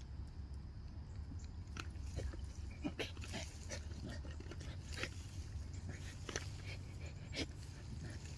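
A pit bull making short, sharp breathing and mouth sounds in irregular clusters over a steady low rumble.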